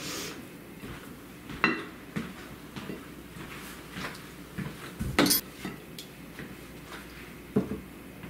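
Serving utensil knocking and scraping on a ceramic dinner plate as food is dished onto it: a few sharp clinks, the loudest about five seconds in.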